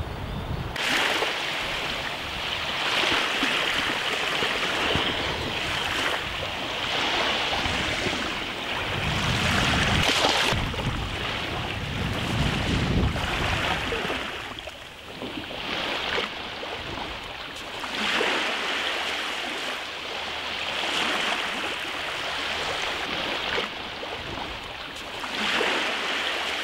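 Small waves washing onto a sandy shore in repeated swells every few seconds, with wind buffeting the microphone at times.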